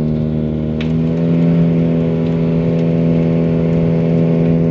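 Engine running at a steady speed: an even drone that holds one pitch.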